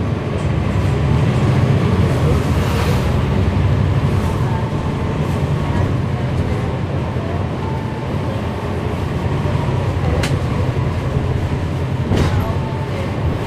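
Inside a city transit bus under way: the Cummins ISL9 inline-six diesel running, with a faint steady whine from the ZF Ecolife 6-speed automatic transmission over the low engine rumble. A sharp click about ten seconds in and another two seconds later.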